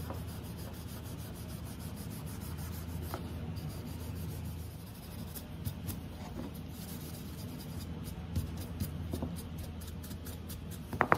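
A hand-held pad rubbing back and forth over a stained wooden chair-arm piece, a steady scratchy rubbing with fine rapid strokes, over a low steady hum.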